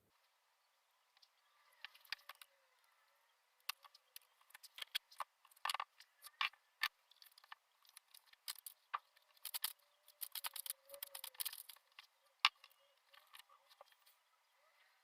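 Faint, irregular light clicks and taps, like small objects being handled, coming thickest in the middle of the stretch.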